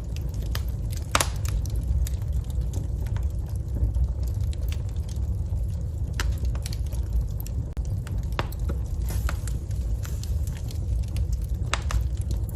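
Wood fire burning in a fireplace: a steady low rumble of flames with irregular crackles and pops, the sharpest about a second in.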